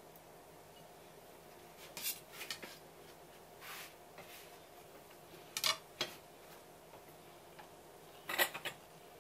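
A ceramic plate and a kitchen knife handled on a wooden cutting board: a few brief scrapes and clatters, the loudest near the end.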